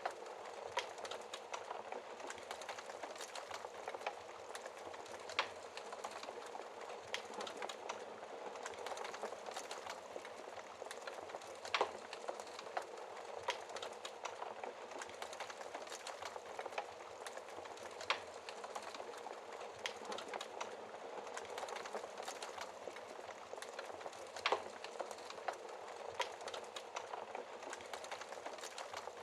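Wood fire crackling in a fireplace: a steady hiss full of small quick crackles, with a louder sharp pop about every six seconds.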